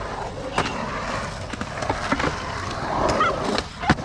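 Skateboard wheels rolling over the concrete of a skate bowl, with several sharp clacks of boards hitting the concrete, the loudest near the end.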